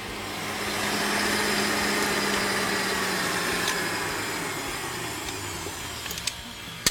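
Electric stand mixer motor running steadily, then its whine slowly drops in pitch and fades. A sharp click comes at the very end.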